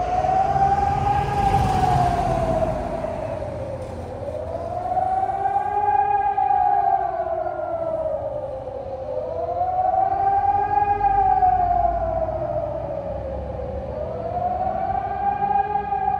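Civil-defence warning siren wailing, its pitch slowly rising and falling in long even sweeps, about one cycle every four and a half seconds: the rising-and-falling howl that German sirens sound as the warning signal, here on the nationwide test day.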